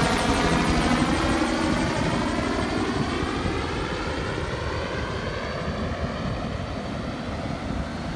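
Helicopter flying over and away, its rotor beat and engine sound fading steadily, with a sweeping, phasing swirl as it recedes.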